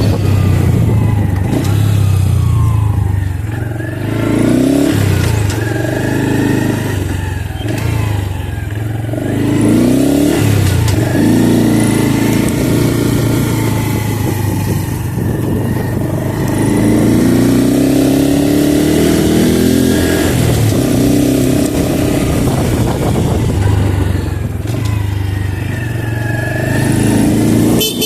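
Honda Pop 110 small motorcycle's single-cylinder engine under way, its pitch climbing under acceleration and dropping again at each gear change, over and over.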